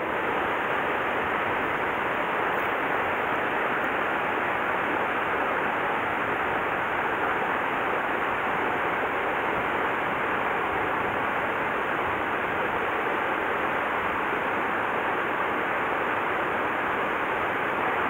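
Steady rush of a mountain stream's flowing water.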